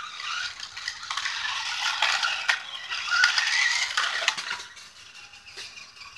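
Toy remote control car driving in reverse: its small electric motor and gears whine, rising and falling, while the plastic body and wheels rattle, then it goes quieter after about four and a half seconds.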